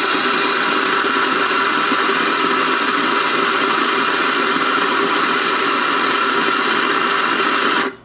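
Nuovo Simonelli MCI espresso grinder running and grinding coffee beans, a loud, steady whir with a constant whine, stopping abruptly near the end.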